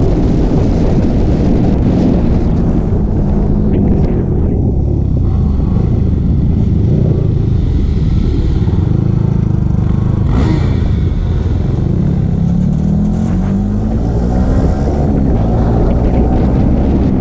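Sport motorcycle engine heard from the rider's own bike, its pitch rising and falling with the throttle and climbing in the later seconds, under a heavy rush of wind on the microphone.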